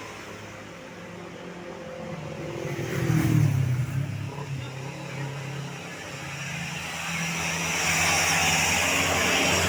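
Tour bus engine running, swelling louder about three seconds in, with a broad hiss of traffic noise building over the last couple of seconds.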